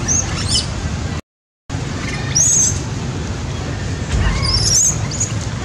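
Baby monkeys giving several short, high-pitched squeals over a steady low rumble. The sound cuts out for half a second about a second in.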